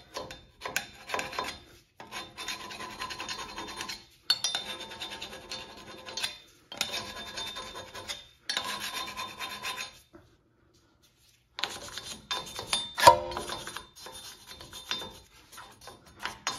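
A metal hand scraper scrapes rust off a steel wheel hub face in runs of rasping strokes, the cleaning done before a new brake rotor is fitted. There is a short pause about two-thirds of the way through, then one louder, sharper scrape.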